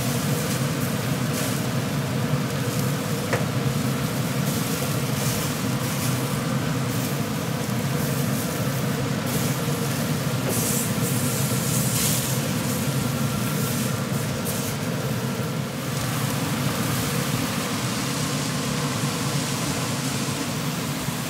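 Tomahawk ribeye sizzling as it is seared over the open flame broiler of a pellet grill, with fat flaring up into flames, over a steady rush from the running grill. The hiss brightens for a few seconds around the middle.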